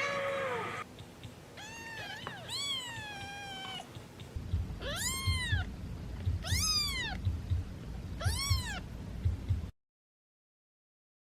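Domestic cats meowing. There is one meow at the start, a few overlapping meows about two seconds in, then three long meows that rise and fall, evenly spaced, over a low pulsing rumble. The sound cuts off suddenly near the end.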